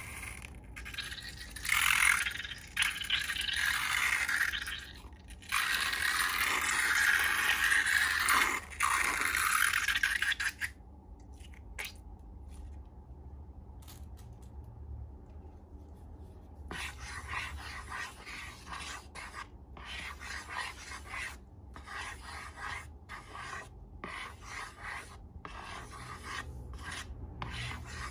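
Scraping and rubbing: several seconds of loud, continuous scraping, then after a pause a run of quieter, rhythmic scraping strokes.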